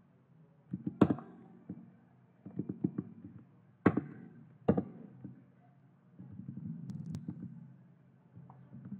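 Keystrokes on a computer keyboard, typing in short runs with pauses between them. A few single, sharper key presses stand out, about one, four and nearly five seconds in.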